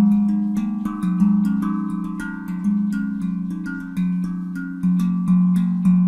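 HanDrum steel handpan, tuned to F Phrygian at 432 Hz, played with the hands in a rhythmic, Afro-style pattern. Quick light strokes fall between stronger accented notes about once a second, and the low notes ring on under the higher ones.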